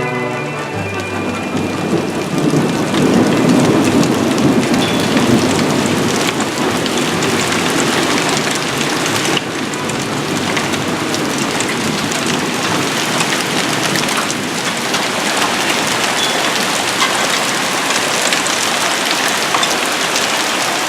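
Heavy rain and hail pelting down steadily, with many small sharp hits of hailstones through the downpour. A rumble of thunder swells under it a couple of seconds in and slowly fades.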